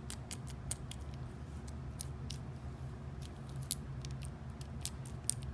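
Faint, irregular small metallic clicks and ticks from hands handling a Yale Superior lock cylinder and its key.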